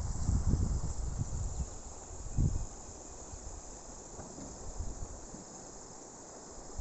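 Steady high chirring of crickets in the flooded fields, with low buffets on the microphone in the first couple of seconds and once more about two and a half seconds in.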